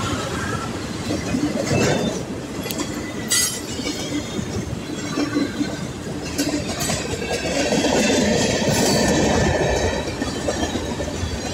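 Freight cars of a CN train rolling steadily past on steel wheels, with scattered sharp clicks and clanks over the rail joints. The rumble swells for a second or two about eight seconds in.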